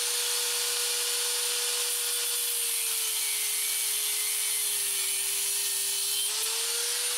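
Angle grinder with a cut-off disc cutting through a threaded steel bolt to shorten it: a steady motor whine with a hiss of grinding. The pitch sags a little about three seconds in as the disc bites and climbs back near the end as the cut goes through.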